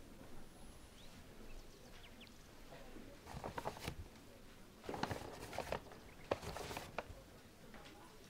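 Three short bursts of rustling and light clatter, about three seconds in, around five seconds and again near six and a half seconds, as things are handled and moved at a box on a lab bench.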